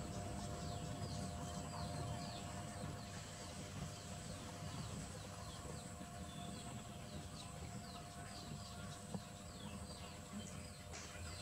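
Birds chirping in the background: many short falling chirps, several a second, over a faint steady hum.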